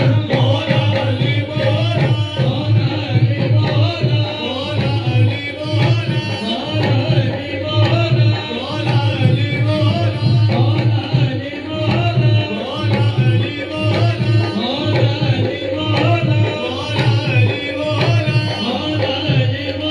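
Qawwali music: a steady hand-drum beat on tabla, under held melodic tones and singing voices.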